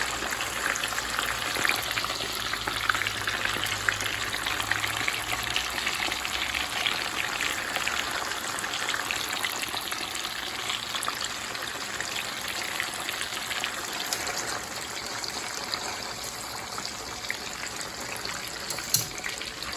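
Cubes of firm tofu deep-frying in hot oil: a steady crackling sizzle full of small pops, easing a little about two-thirds of the way through. A single sharp click comes near the end.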